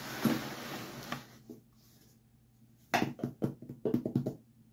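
A bench grinder being shifted by hand on its wooden base: a scraping slide over about the first second, then a quick run of knocks and clatter about three seconds in.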